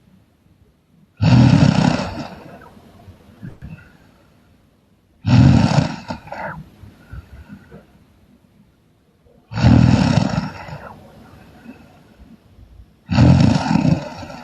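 A sleeping person snoring loudly: four harsh snores about four seconds apart, each starting abruptly and trailing off over a second or so.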